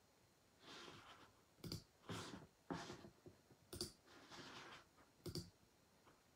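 Faint clicks in near quiet: three sharp ones roughly one and a half to two seconds apart, with soft rustling sounds between them.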